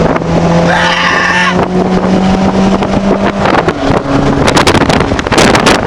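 Car engine heard from inside the cabin, its pitch rising slowly as it pulls, then dropping about three and a half seconds in, with a quick run of knocks and rustles near the end.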